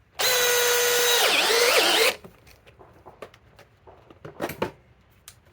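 Cordless drill driving a #14 by 3/4-inch sheet metal screw into metal plate about an eighth of an inch thick: a steady high motor whine for about two seconds. About halfway through, the pitch dips and wavers as the screw bites and loads the motor, then the whine stops abruptly. A few light clicks follow.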